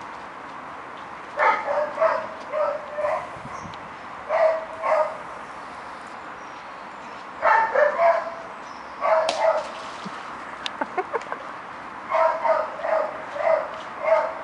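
Foxhounds barking and yipping during rough play, in about five bouts of several quick barks each.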